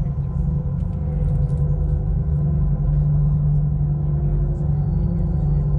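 Drum corps ensemble opening a full run with a sustained low drone that swells in loudness over the first few seconds and then holds.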